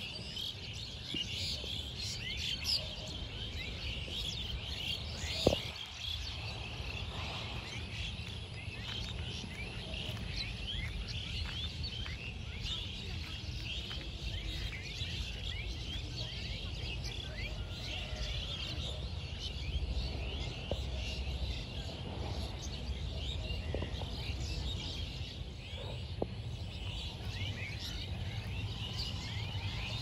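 A flock of birds chirping and calling continuously, many short high calls overlapping, over a steady low rumble. A single sharp click about five and a half seconds in.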